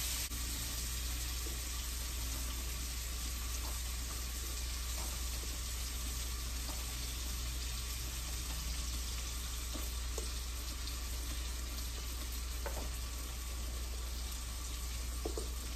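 Curry frying in oil in a pan, a steady sizzle as pre-cooked shrimp are dropped in by hand, with a few faint taps and a low hum underneath.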